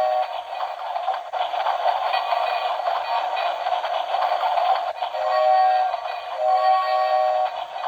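Playmonster Sleepyhead train alarm clock playing recorded steam-train sounds through its small speaker: a steady chugging hiss, with a train whistle blowing twice from about five seconds in. The sound is thin, with no bass.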